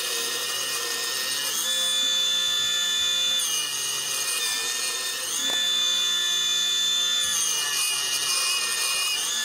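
Mini benchtop table saw running with a steady high whine, its blade cutting through a pine block twice. Each cut lasts about two seconds, louder, with a shift in the motor's pitch under load.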